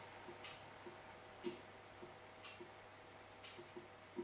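Near silence: faint small ticks and clicks, about one every half second to a second, over a low steady hum.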